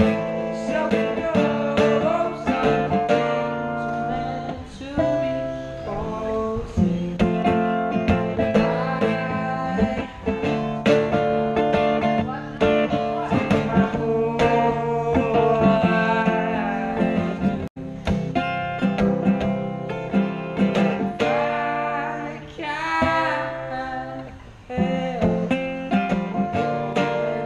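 Acoustic guitar, capoed, strummed and picked in a song, with a man singing along.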